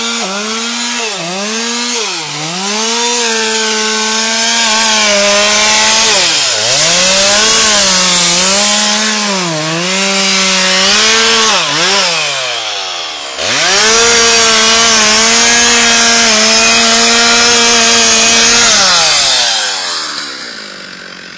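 Two-stroke chainsaw running at high revs into a dead tree's trunk at its base. The engine note dips and recovers several times, then falls away near the end as the throttle is released.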